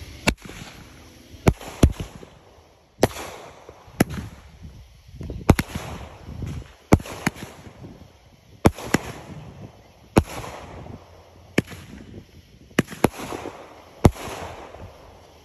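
Multi-shot aerial fireworks firing: a steady run of sharp bangs about one to one and a half seconds apart, some in quick pairs, with a hissing crackle trailing after several of the bursts.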